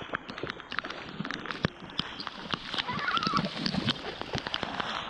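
Heavy rain falling steadily, with many sharp drop hits close to the microphone and running footsteps splashing through shallow floodwater. A faint voice about three seconds in.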